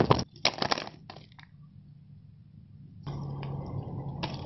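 A quick run of sharp crackles and rustles in the first second or so, then quiet. After about three seconds a steady low hum comes in.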